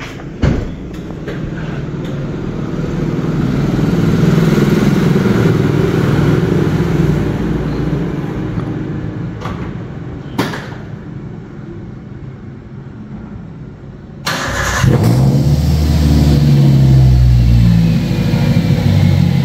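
Toyota Avanza engine running through a newly fitted aftermarket exhaust: a bass-type JS Racing muffler and a Scott resonator, with the centre silencer replaced by a straight pipe, giving a deep, bassy note. The engine swells for a few seconds and eases off, then about 14 seconds in turns suddenly louder and deeper.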